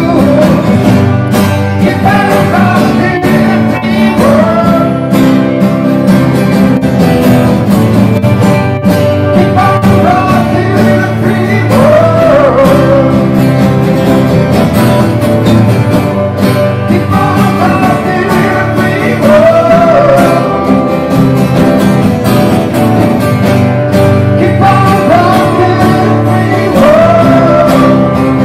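Live acoustic band of several guitars strumming together, with a man singing the melody in a country or bluegrass style.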